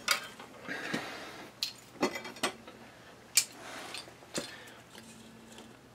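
Hard boiler parts being handled: a string of sharp clicks and light clanks, about seven over the first four and a half seconds, as the removed burner and combustion blower assembly is moved about.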